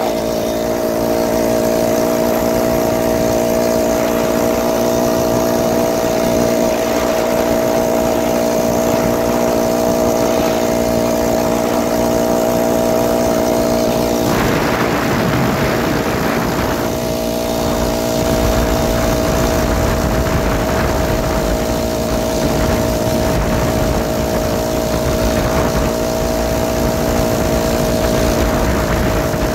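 Single-cylinder 49cc four-stroke engine of a BikeBerry motorized bicycle running at a steady cruising speed, holding one pitch. About halfway through its note wavers and breaks up for a few seconds, then settles back to the same steady pitch with more low rumble beneath it.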